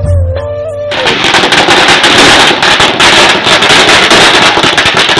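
A string of firecrackers going off on the ground, a rapid, dense crackle of loud bangs that starts suddenly about a second in and runs on without a break.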